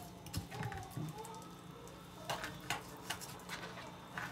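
Chef's knife cutting a chicken thigh off the bone on a plastic cutting board: irregular light knocks and clicks as the blade meets the board, about eight in all.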